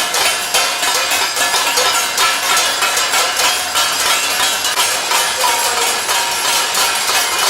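Dense clapping from many hands at once, with metallic clinks and short ringing tones mixed in among the claps.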